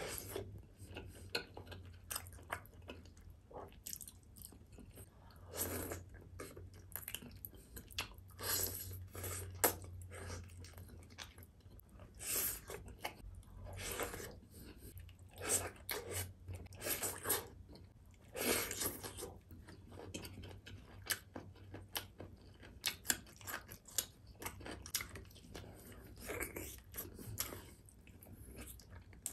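Close-miked chewing of beef rendang and rice eaten by hand, in irregular mouthfuls with many short clicks and crunches.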